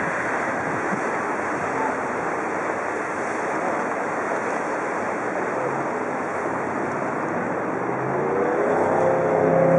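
Many motorboats running together on the river: a steady rushing mix of outboard engines and churning wake water. In the last two seconds a single engine's hum grows louder.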